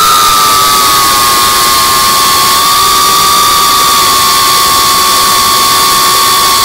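3.5-inch FPV cinewhoop's brushless motors whining at a steady high pitch over a dense rush of propeller noise, the pitch sagging slightly at first and nudging up about two and a half seconds in as the throttle shifts.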